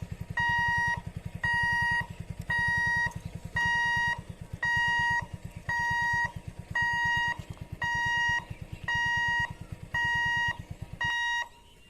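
Railway level crossing warning alarm beeping about once a second, a steady electronic tone on and off. A low rapid buzz runs underneath and stops about eleven seconds in.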